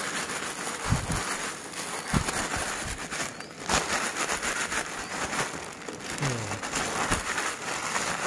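Clear plastic bag crinkling and rustling as hands squeeze and knead a crumbly bread and egg-yolk mixture inside it, with a few low thumps.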